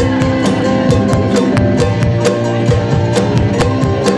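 Live band playing a song on grand piano, drum kit and guitar, with a steady drum beat.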